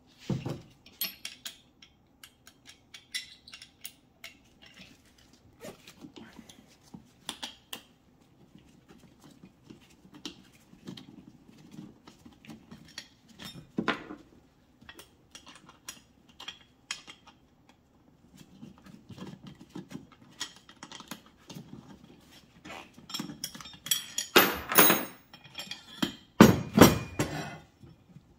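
Steel mounting brackets and hardware of an Air Lift Load Lifter 5000 air spring kit clinking and clattering as they are handled and refitted, with a run of louder knocks near the end.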